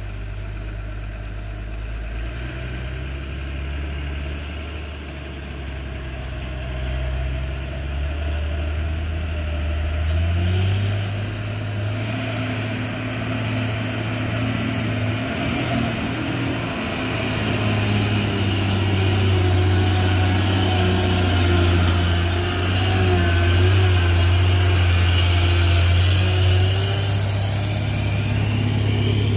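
Loaded cargo truck's engine labouring up a steep climb, its note stepping up in pitch about ten seconds in and growing louder as the truck comes close and passes.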